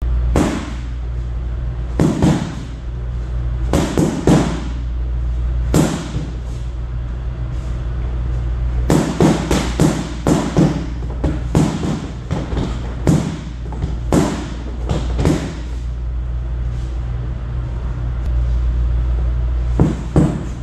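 A wooden stick whacking a freestanding Wavemaster punching bag, in single sharp hits a second or two apart and quick flurries of several strikes, the busiest flurry about nine to ten seconds in. A steady low hum runs underneath.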